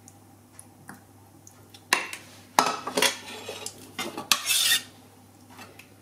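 Metal kitchen utensils clattering and scraping against cookware: faint ticks at first, then a few sharp clinks about two seconds in, and a louder scrape shortly before the end.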